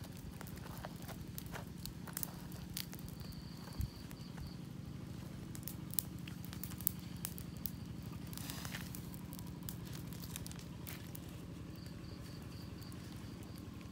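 Wood campfire crackling, with sharp pops every second or so over a steady low hum. A faint high chirping is heard twice.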